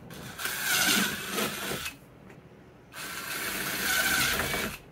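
Cordless drill boring two holes through a plastic tote lid, two runs of the spinning bit cutting through the plastic, each lasting under two seconds, with a short pause between.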